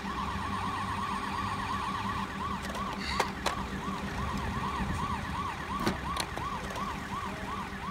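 Battery-powered toy emergency-vehicle siren from a Bruder light-and-sound module, wailing up and down rapidly, about three cycles a second, without a break. A few light plastic clicks from the toys being handled sound over it.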